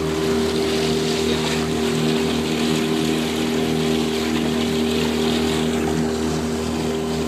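Motorboat engine running under way at a steady pitch, with a constant rushing hiss over it.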